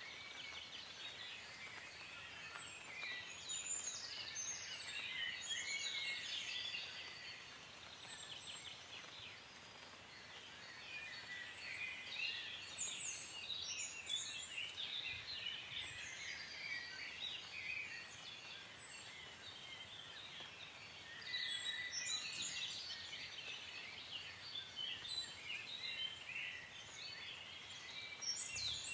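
A chorus of birds chirping and singing, many quick high calls overlapping without a break.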